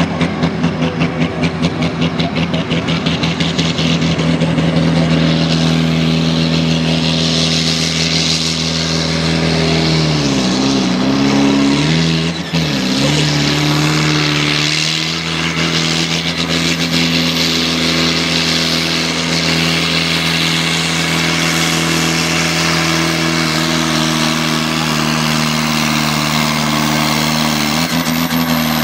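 Valmet tractor's diesel engine running flat out under heavy load as it drags a pulling sled, holding a steady high note. Around the middle the revs sag twice and recover as the load bites, and the engine drops off abruptly right at the end.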